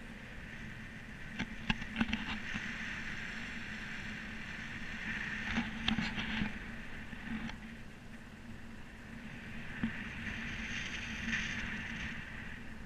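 Airflow rushing over a GoPro camera on a paraglider in flight, swelling and easing in waves, with a few sharp clicks and taps.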